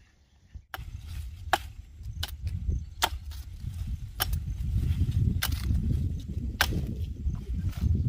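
Wood being chopped: a string of sharp strikes, roughly one a second, beginning just under a second in, over a steady low rumble.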